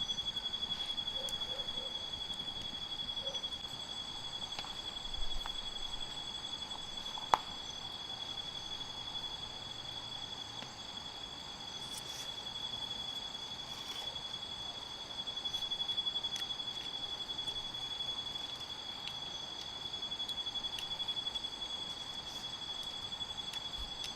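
A steady, high-pitched trill that starts abruptly and holds throughout over a faint hiss, with a single sharp click about seven seconds in.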